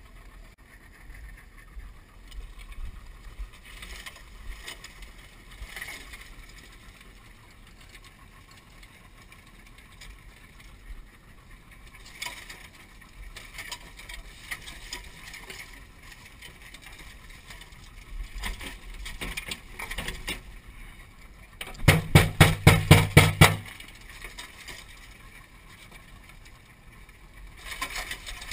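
Outboard motor of a crawfish skiff idling under the rustle and clicking of crawfish being sorted by hand in a metal tray. About two-thirds of the way through comes a loud, rapid rattle of about seven knocks a second that lasts under two seconds.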